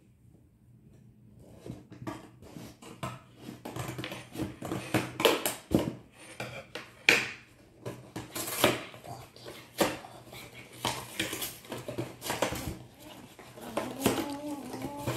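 Cardboard cookie box being opened by hand: an irregular run of crackles, rips and taps as the paperboard flaps are pried and torn open.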